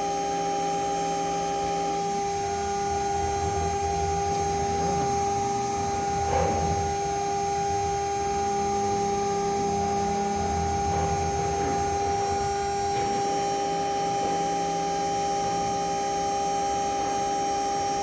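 CNC router engraving a ceramic mug held in a rotary attachment: the spindle runs with a steady whine while the axis motors add a lower drone that shifts as the cutter moves.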